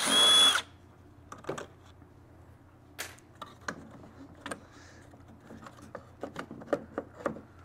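A cordless drill-driver whines briefly at the start, backing out a carburetor bolt, then stops. Then come scattered light clicks and knocks of plastic and metal parts being handled as the carburetor and its housing on a Stihl BR800 backpack blower are worked loose.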